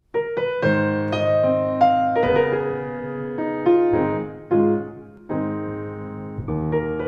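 Piano intro music: a light melody of struck notes over held chords, with a short lull a little past the middle before it picks up again.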